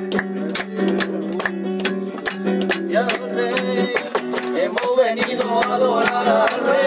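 Flamenco-style rhythm strummed on a nylon-string Spanish guitar, with hand claps keeping time. A voice starts singing about three seconds in.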